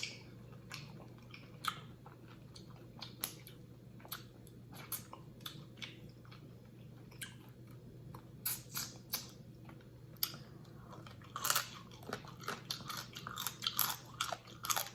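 Close-up eating sounds: wet chewing and smacking of seafood boil with sharp crunching clicks, sparse at first and coming thick and fast in the second half.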